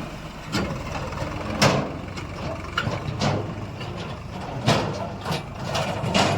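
Heavy diesel earth-moving machinery running, with a series of sharp knocks coming every half second to second and a half, the two loudest about a second and a half in and near the end.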